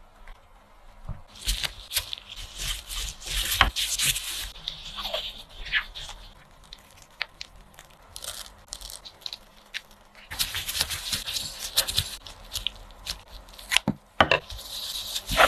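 Thin plastic gloves rustling and crinkling as hands cut, fill and shape chocolate dough, with scraping and a few sharp clicks among the rustles. The sounds come in irregular bursts with quieter stretches between them.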